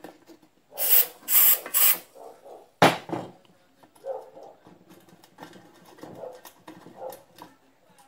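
Three short hisses of a ThreeBond aerosol lubricant sprayed at the pressure-cooker handle's stuck screw, then a sharp knock, followed by faint scraping and clicking as the handle is worked.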